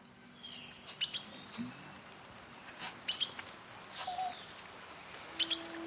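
Small sharp clicks and taps of a screwdriver and tiny screws as a laptop speaker is unscrewed, scattered irregularly and loudest around the middle and near the end. A faint high thin tone drifts slightly downward through the middle.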